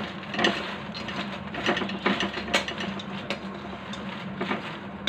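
Metal spatula stirring and scraping makhana (fox nuts) in a metal kadhai as they roast in ghee: a run of quick clicks, scrapes and rattles.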